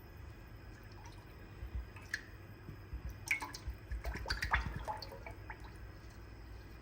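Coconut oil poured into a cooking pan, with a scatter of small drips, splashes and clicks over a few seconds.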